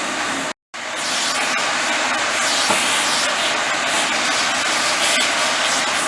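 Water spraying onto an air-conditioner filter as it is washed: a steady hissing rush with no motor tone, broken by a brief dropout about half a second in.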